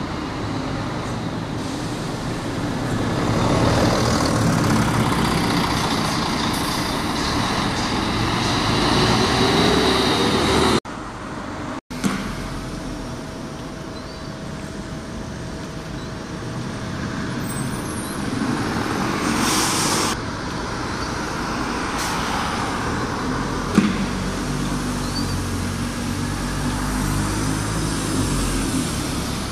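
Diesel single-deck buses pulling away and turning, their engines running under load, with the noise of passing street traffic. An engine note rises in pitch before a cut about a third of the way in. Later comes a short high-pitched air hiss, and a single knock shortly after it.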